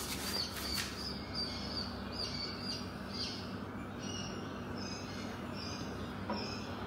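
A small bird chirping repeatedly, about two short high chirps a second, fading to fainter calls after about three seconds, over a steady low hum.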